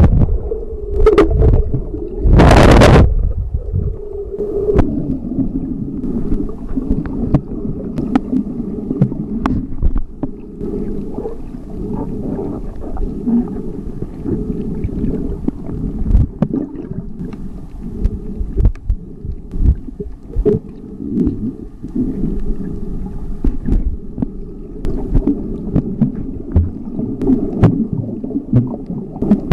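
Muffled underwater water noise picked up by a camera held beneath the surface: a few loud rushing bursts in the first three seconds, then a low steady rumble with scattered faint clicks and pops.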